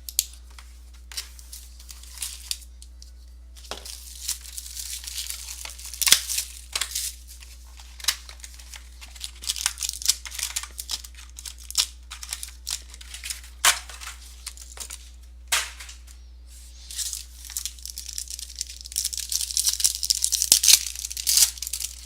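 Plastic wrapping on a box of trading cards and its packs being torn open and crinkled by hand. Irregular crackling and sharp handling clicks, busiest in the middle and near the end.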